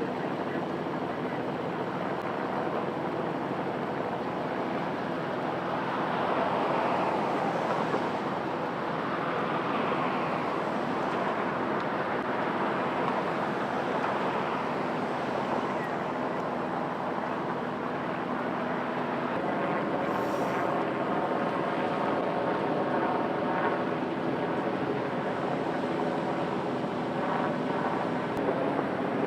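Single-turbine light helicopter (Bell 206 or AS350 type) running in flight: a steady rotor and turbine sound that swells a little several seconds in.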